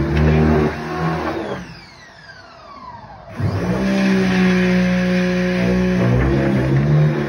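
Pressure washer running, its spray blasting hardened investment out of a casting flask. About a second and a half in the sound drops away with a falling whine as the motor winds down. It picks back up to full running about three and a half seconds in.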